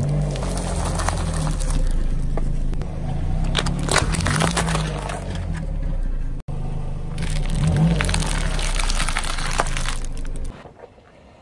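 A car's engine runs low as its tyre rolls over plastic-wrapped biscuit and chocolate-spread snack packs, crackling and crunching the wrappers and their contents. The sound cuts off abruptly about six and a half seconds in, starts again, and falls away about ten and a half seconds in.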